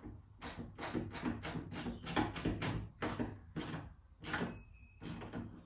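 Ratchet spanner tightening the bolts of a new door hinge: a run of quick clicks, about three a second, with a short pause near four seconds and a brief high squeak just after.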